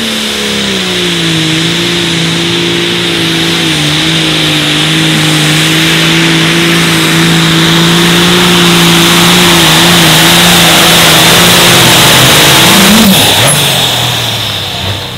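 Super Farm class pulling tractor's turbocharged diesel engine at full throttle under load. It dips in pitch at the start, then holds a steady drone that grows louder for about thirteen seconds. Near the end the throttle comes off and the sound falls away.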